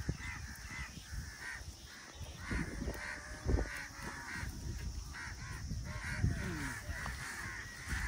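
Crows cawing over and over, a short harsh call every half second or so, over a low rumble.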